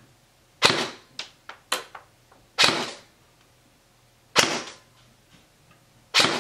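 Krytac Alpha CRB electric airsoft rifle (AEG) fired four single shots through a chronograph, each a sharp crack about one and a half to two seconds apart, with a few fainter clicks after the first shot. The shots are a velocity test, reading around 290–340 fps.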